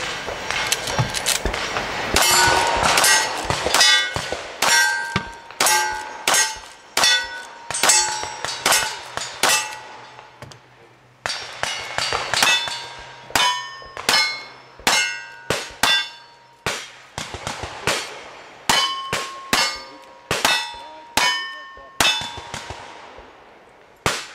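A steady string of gunshots, about two a second, each followed by the ring of a struck steel target, with a pause of about a second near the middle.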